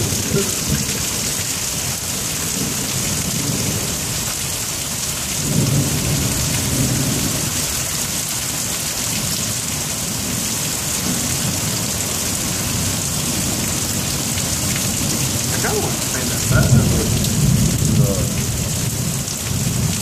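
Steady heavy rain hissing throughout, with two low rolls of thunder, one about five seconds in and a louder one about seventeen seconds in.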